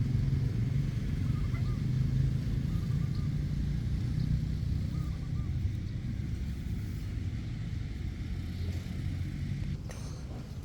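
A loud, steady low rumble that eases off slightly, with a few faint short chirps and a click about ten seconds in.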